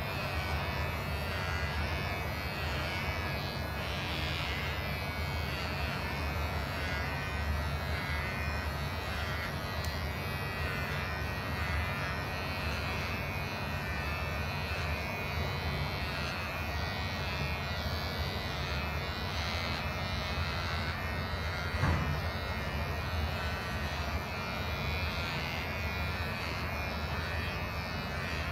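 Small cordless electric hair clipper buzzing steadily as it is run through a cat's long fur, with one brief knock about three-quarters of the way through.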